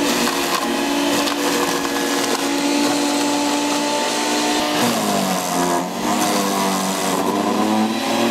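A small Harbor Freight wood chipper running and shredding fresh moringa branches, with crunching and splintering of wood over the motor's steady hum. About five seconds in, its pitch drops as it labours under a load of branches, then climbs back.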